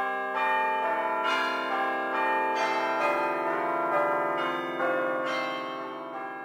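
A peal of bells ringing, a new bell struck about every half second, the tones overlapping and ringing on, growing a little softer near the end.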